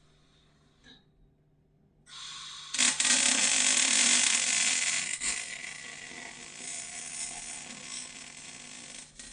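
MIG welder arc crackling and hissing as a bead is laid on steel chassis tubing, starting suddenly about two seconds in after near silence, loudest for the next two seconds and then continuing more softly.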